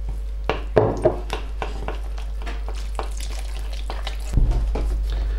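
Metal fork stirring wet flour into dough in a ceramic bowl, with irregular sharp clicks and scrapes as it knocks against the bowl.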